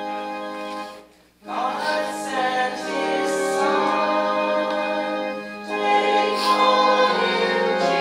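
Organ finishes the hymn introduction and breaks off for a moment about a second in. Then a congregation starts singing the hymn with the organ sustaining chords beneath, with a brief drop between phrases about five and a half seconds in.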